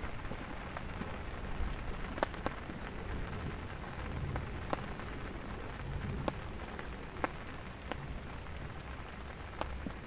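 Steady rain falling, with single drops landing close by as sharp ticks, about one or two a second.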